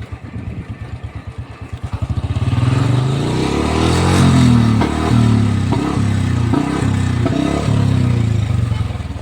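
Royal Enfield Bullet's single-cylinder engine thumping slowly at idle, then revved up from about two seconds in and blipped several times, with sharp exhaust pops on the blips, which the rider calls misfire.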